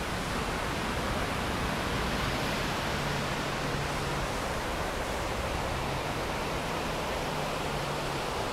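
Steady rushing noise with no breaks or distinct events, and a faint low hum that comes and goes from about three seconds in.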